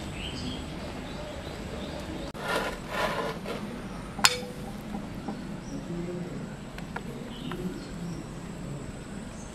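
A spoon clinking once, sharply, against a glass bowl of raita, after a short spell of scraping and handling noise.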